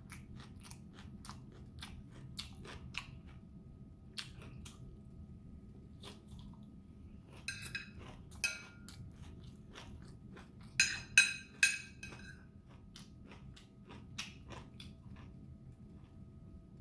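Close-up chewing of crunchy napa cabbage kimchi with rice: a steady run of small crunches and mouth clicks, with two louder bursts of sharp clicks about halfway through and again about two-thirds through.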